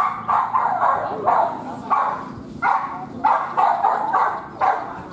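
A dog barking over and over in a fast, steady series, about two barks a second.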